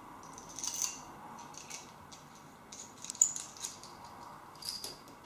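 Small metal screwdriver bits clicking and rattling as they are slotted back into the handle of a compact screwdriver, a run of light scattered ticks with one sharper click about three seconds in.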